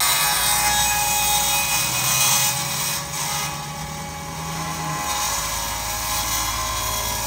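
Circular saw running under load as it rips a long board lengthwise. It keeps a steady cutting noise, and its motor hum drops away about five seconds in.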